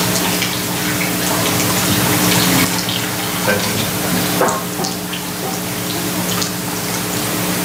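Sound-system hiss with a steady electrical hum and scattered crackles, from a microphone that has just been plugged in and is being handled and clipped on.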